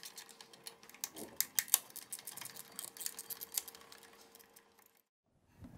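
A 7/16 wrench clicking rapidly as a bracket bolt is loosened. The quick, fairly even clicks come several a second, thin out and stop about four seconds in.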